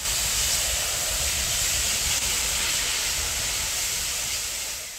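Steady hissing outdoor noise with wind rumbling and buffeting on the microphone, fading out near the end.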